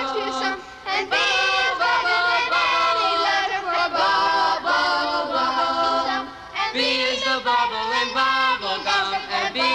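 A choir of children's voices singing a cheerful song with light musical backing, with brief breaks just before one second and around six seconds in.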